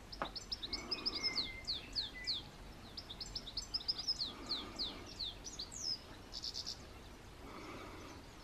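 A small bird singing: two phrases of rapid, high chirps, each note falling in pitch, then a short buzzy trill about six seconds in.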